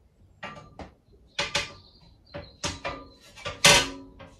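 Glass shelf being handled and set into the black steel frame of an IKEA Vittsjö shelf unit: a run of about ten knocks and clinks of glass on metal, the loudest about three and a half seconds in, ringing briefly.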